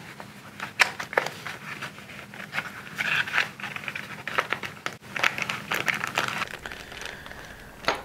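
Hands opening a small paperboard box: the card flaps scraping and rustling, with scattered light taps and crinkles, a few of them louder about a second in, around three seconds and around five seconds.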